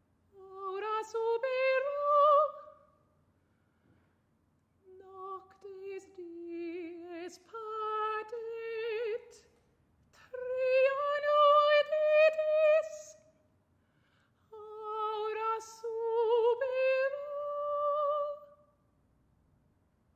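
A woman's unaccompanied solo voice singing four long, slow phrases with vibrato, separated by short pauses. It is a contemporary art-music vocal piece for solo voice.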